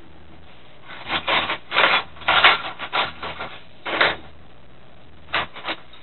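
Metal hand tools, spanners, clattering and scraping as they are rummaged through and picked up: a run of rough clinks and scrapes for about three seconds, then two short clatters near the end.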